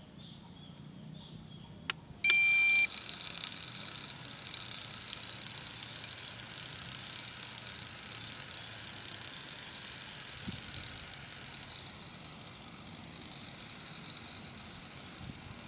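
A click, then a short loud electronic beep about two seconds in as the drone's radio transmitter and FPV monitor are switched on, followed by a steady electronic hiss with a thin high whistle that carries on.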